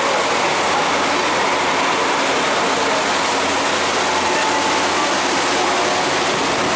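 Steady rushing noise of a dive boat under way: the engine running and the wake water churning at the stern.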